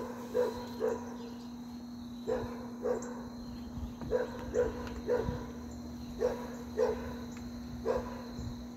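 A dog barking repeatedly in short runs of two or three, about a dozen barks in all, over a steady high chirring of crickets.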